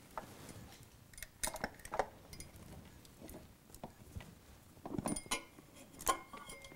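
Scattered light clinks and knocks as a Honda CRF450R carburetor is worked out of the motorcycle's frame, the carb and its fittings bumping against metal, in two small clusters.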